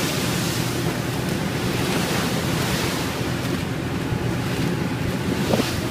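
Waves and spray rushing against a ferry's hull in rough seas, with wind buffeting the microphone over the steady low running of the ship's engines. The hiss of the water swells and falls every second or so, and a short sharp sound cuts in near the end.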